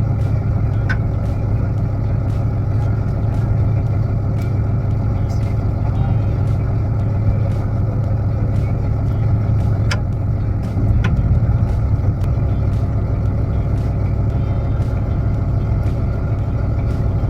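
A fishing boat's engine running steadily with a deep, even hum, rising a little in loudness about two-thirds of the way through, with a few faint clicks over it.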